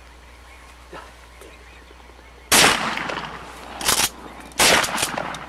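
Shotgun shots at flying ducks: a first loud shot about two and a half seconds in, then several more in quick succession near the end, each trailing off in echo.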